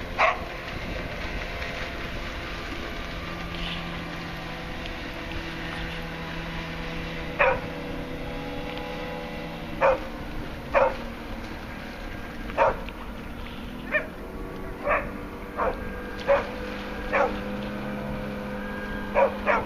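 A dog barking about a dozen times in short, separate barks at uneven intervals, mostly in the second half. Under it runs the faint, steady drone of the Evinrude 4 hp outboard pushing the canoe at full speed.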